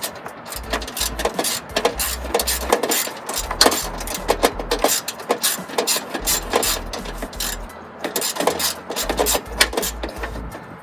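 Socket ratchet clicking in rapid, irregular runs as a bolt beneath the headlight is turned out. A low musical beat runs underneath.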